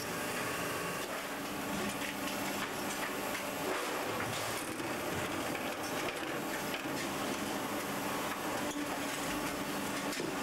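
Machinery on a sheet-metal exhaust-silencer production line running steadily, a dense drone with a faint hum and occasional short metallic knocks.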